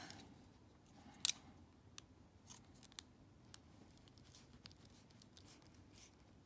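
Small scattered ticks and clicks from a precision screwdriver turning a tiny screw in a plastic doll-frame leg part while it is handled, with one sharper click a little over a second in.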